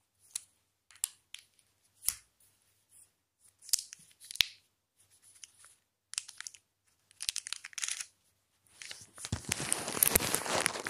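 Plastic protective wrap on a new smartphone being handled and pulled off: scattered clicks and rustles, then about nine seconds in, loud continuous crinkling and tearing of the plastic.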